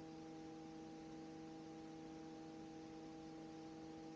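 Near silence: a faint, steady electrical hum over low hiss.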